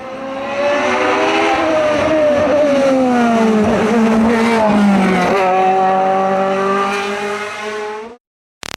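Competition car's engine running hard at high revs, its pitch gliding and then jumping at a gear change about five seconds in. The sound cuts off abruptly near the end, and electronic beeping music starts just after.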